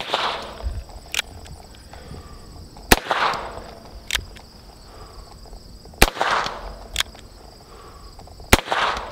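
Small revolver fired four times at a slow, deliberate pace, about three seconds apart, each shot trailing off in an outdoor echo. A sharp click about a second after each of the first three shots is the hammer being cocked back for the next one.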